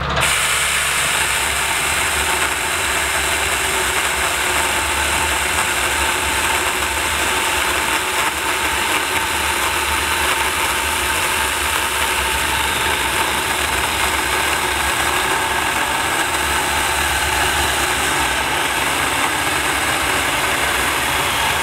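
Saker 4-inch mini cordless electric chainsaw running steadily as its chain cuts through an oak log, slicing off a thin round; the noise starts abruptly and holds at an even level throughout.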